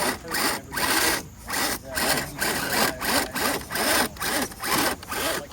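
Scale RC rock crawler's electric motor and drivetrain running in short repeated bursts, about two a second, with a whine that rises and falls in each burst.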